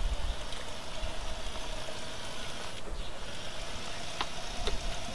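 Wind rumbling on the microphone over a steady hiss, with a faint steady hum and two light clicks near the end.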